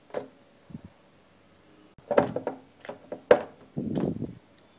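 Gloved hands kneading a soft dough in a glass bowl: a few scattered knocks of the dough and fingers against the glass, the sharpest about three seconds in, and a brief squishing rustle near the end.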